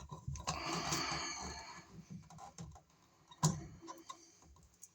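Hands handling a wall receptacle and its wires: a second and a half of rustling and scraping, then a sharp click about three and a half seconds in, with scattered small taps.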